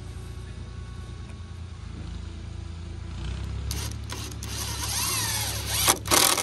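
Cordless drill driving a screw into wooden boards, its motor whine rising and then falling in pitch in the second half, followed by two sharp clicks near the end.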